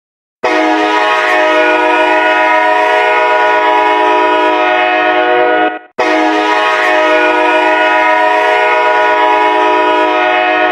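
Hockey goal horn sounding a goal: two long, steady blasts of a multi-note horn chord, each about five seconds, separated by a brief break, the first starting about half a second in.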